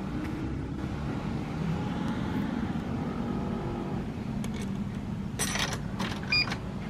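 Steady low rumble of street traffic passing. About five and a half seconds in there is a short rattle, and just after six seconds a sharp metallic clink with a brief ringing tone, the loudest sound.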